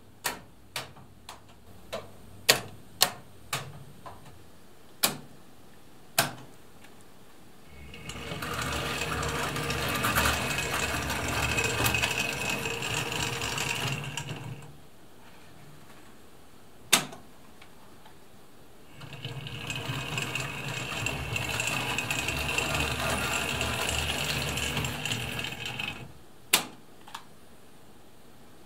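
Hornby Dublo point solenoids clicking one after another as a route is set, each point throwing with a sharp snap. Then a Hornby Dublo locomotive's motor and wheels run steadily along the track for about six seconds, a single click, and another run of about seven seconds, followed by two more clicks near the end.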